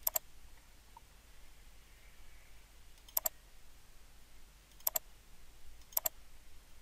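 Computer mouse button clicks: four quick pairs of clicks, spaced one to three seconds apart.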